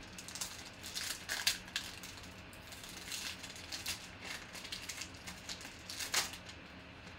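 Plastic foil wrapper of a trading-card pack crinkling and tearing as it is ripped open by hand. It goes in irregular crackles, with louder ones about a second and a half in and again near the end.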